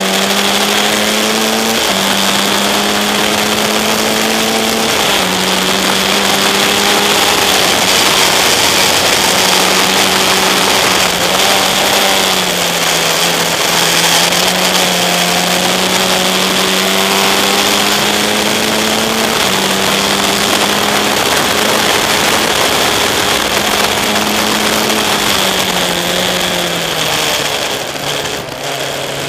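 Single-seater race car's engine at speed, heard from on board: its note climbs slowly through each gear and drops abruptly at each upshift, over a constant rush of wind and road noise. Near the end the note sinks steadily as the revs come down.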